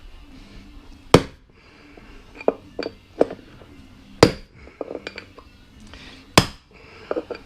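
Hammer blows on metal driving a bushing out of a spreader's sulky rear wheel: three hard strikes spaced about two seconds apart, with lighter knocks and taps between them.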